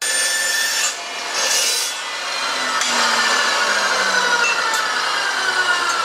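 Porter-Cable dry cut metal saw, noisy, finishing a cut through quarter-inch aluminium channel in the first couple of seconds, then its blade and motor spinning down with a steadily falling whine.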